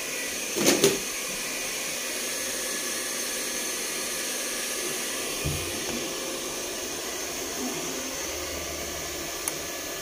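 Makita electric heat gun running steadily, its fan blowing hot air as a test load. Two sharp clicks come just under a second in, and a dull knock follows about halfway through.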